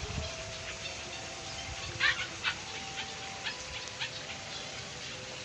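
A dog yapping: a run of short barks, about two a second, starting about two seconds in, the first one the loudest.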